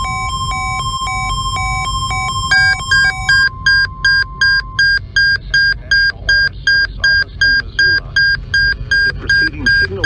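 NOAA weather alert radios sounding their alarm beeps for a Required Weekly Test, over the broadcast's steady 1050 Hz warning alarm tone. A quick alternating high-low beeping stops about three and a half seconds in. A louder beeping of roughly two to three beeps a second starts about two and a half seconds in. The steady tone cuts off about five seconds in.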